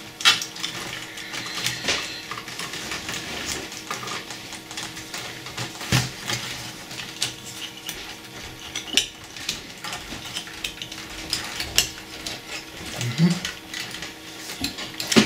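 Irregular clicks, taps and light clinks of small metal and plastic parts and wires being handled inside an opened Pioneer CT-520 cassette deck during a belt replacement.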